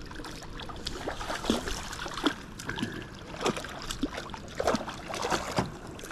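Water splashing and scattered small knocks and clicks around a kayak as a hooked channel catfish is fought at the surface.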